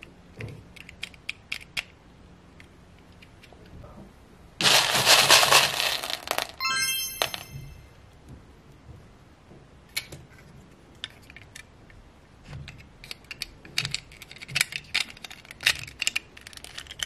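Small plastic beads clicking and rattling as hands dig a doll out of a tray full of them, with a loud rush of shifting beads about five seconds in. A brief chime follows just after.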